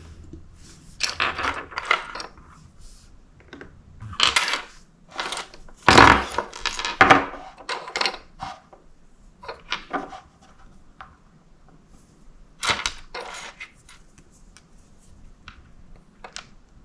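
Small plastic miniature toy pieces clicking and clattering as they are set down on a wooden tabletop and fitted together, in scattered bursts, the loudest about six seconds in.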